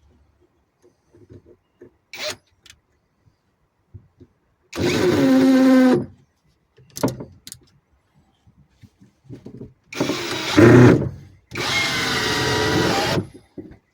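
Power drill running in three bursts of a second or so each, with a steady motor whine, and small clicks and knocks of handling between the bursts.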